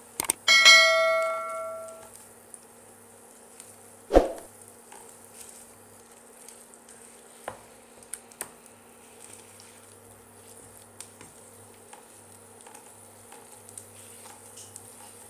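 A click, then a bell chime from a subscribe-button animation, ringing out for about a second and a half near the start. A single loud knock about four seconds in, then faint scraping and light sizzling of a wooden spatula stirring khoya in ghee in a non-stick pan.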